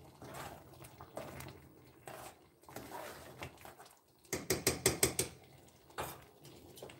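Metal spoon stirring and knocking against a stainless steel pot of stew, with scattered clinks and a quick run of about eight sharp clicks a little after four seconds in.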